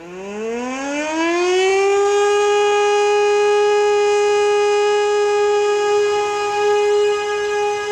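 Hand-cranked civil-defence siren being wound up: its wail rises in pitch over about the first two seconds, then holds at one steady pitch.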